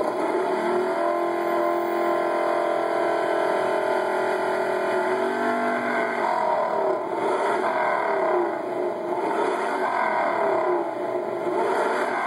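Dodge Charger V6 engine revving hard with a deep V8-like note: it holds a steady high rev for about five seconds, then revs up and down repeatedly, heard through a TV's speakers.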